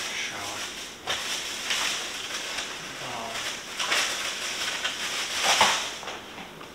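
Shower running: water spraying and splashing unevenly, surging now and then, with a few faint muffled words.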